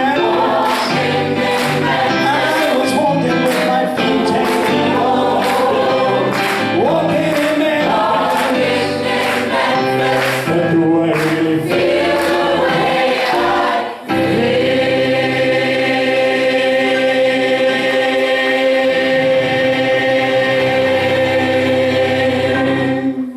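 Gospel choir singing in harmony with instrumental accompaniment, then holding one long final chord from about fourteen seconds in until it cuts off at the very end.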